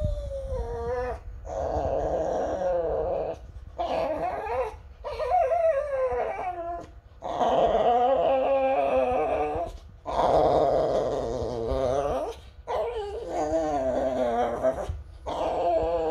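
Small white dog howling and whining in a run of wavering "woo woo woo" calls, about eight of them, each lasting one to three seconds with short breaks between, as its ear is swabbed with a cotton bud.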